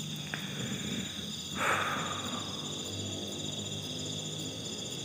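Steady chorus of crickets with a constant high-pitched trill, and a short noisy rustle about one and a half seconds in.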